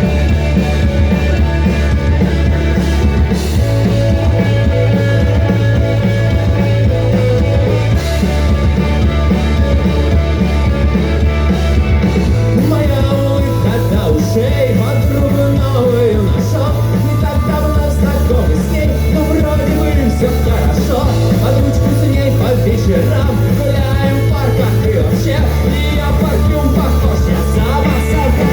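A song playing loud: music with a steady bass line, and a singing voice that comes in about halfway through.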